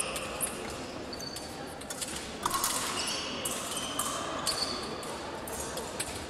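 Busy sports-hall ambience with indistinct voices, cut through by many short, high squeaks and beeps at several different pitches, each lasting under a second.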